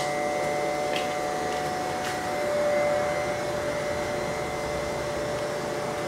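A small motor running steadily, humming with a constant whine whose pitch steps slightly lower a little over two seconds in.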